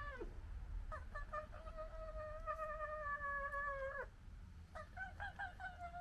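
Long drawn-out animal calls, like a cat's yowl: each is held for about three seconds, opens with a few short stutters and ends with a quick drop in pitch. One call ends just after the start, a second runs from about one to four seconds in, and a third begins near five seconds. A steady low rumble runs underneath.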